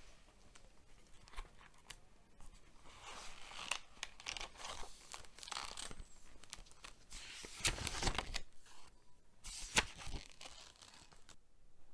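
Paper rustling and crinkling as the pages of an old spiral-bound notebook are handled and turned, with a few sharper page flips that are loudest in the second half.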